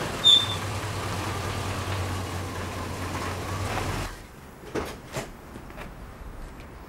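A car's engine runs steadily with a low hum as the car pulls in, with a brief high squeak just after the start. The engine cuts off about four seconds in, followed by a few light clicks and knocks.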